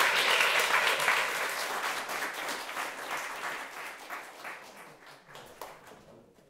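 Audience applauding, a dense crackle of clapping that fades steadily away toward the end.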